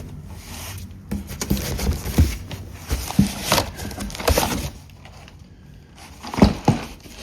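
E-bike packaging being handled: plastic wrap and cardboard rustling and crinkling, with several light knocks.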